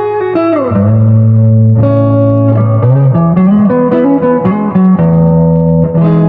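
Guitar music: plucked guitar notes ring over sustained low notes, with a note sliding down in pitch about half a second in and a run of quick low notes from about three seconds in.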